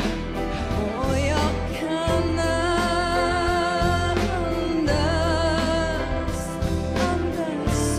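A woman singing a pop song live with band backing, holding long notes with vibrato over a steady bass line.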